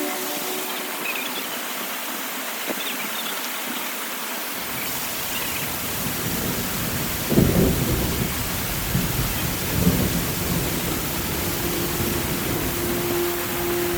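Steady rain with thunder rumbling. The deep rumble comes in about halfway through and swells twice, about seven and ten seconds in.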